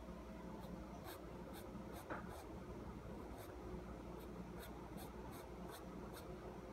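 An ink pen scratching across paper in about a dozen short, quick strokes as lines are inked, over a faint steady low hum.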